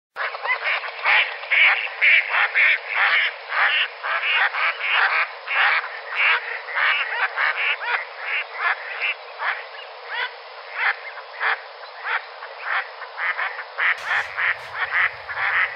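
Ducks quacking: a rapid run of quacks, about two or three a second, rising and falling in strength.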